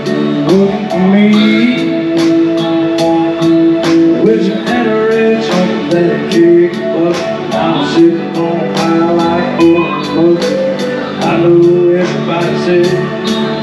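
Live country band playing a song: a drum kit keeping a steady beat of about four strokes a second, close to the microphone, under electric guitar, keyboard and singing.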